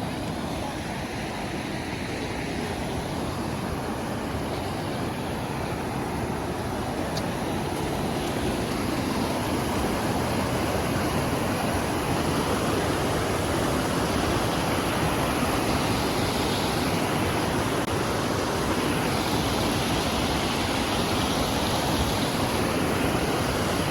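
Rushing water, a steady even rush with no distinct strokes, growing gradually a little louder.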